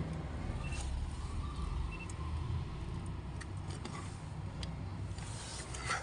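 Low, steady background rumble with a few faint clicks and rustles from handling the plastic OBD plug of a key-programming diagnostic cable at the car's port.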